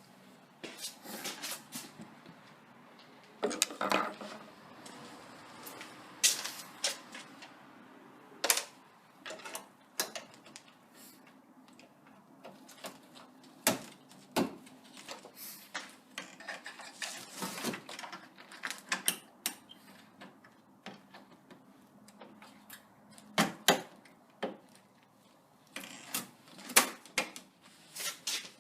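Irregular sharp clicks, snaps and knocks of plastic as a headlight assembly's retaining clips are pushed back into place and the housing is handled. The loudest snaps come near the end.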